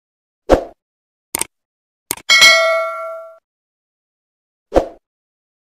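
Subscribe-button animation sound effects: a short pop, a few clicks, then a bell ding with several tones that rings out for about a second, and another pop near the end.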